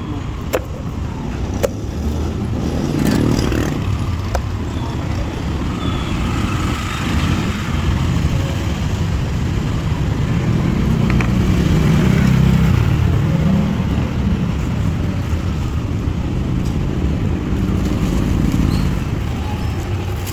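Street traffic: a steady low rumble of passing motor vehicles that swells for a few seconds around the middle. A few sharp knocks in the first few seconds.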